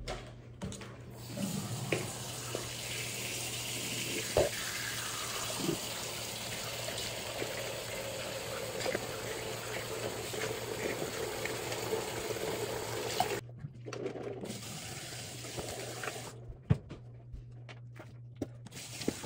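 Bathroom sink faucet running steadily into the basin, turned off abruptly about two-thirds of the way through. After that it is quieter, with a few small knocks and a spit into the sink near the end.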